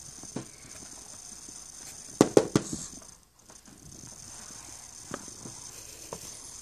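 A spoon knocking against a baby food jar: three quick sharp knocks about two seconds in, then a few faint clicks, over a steady background hiss.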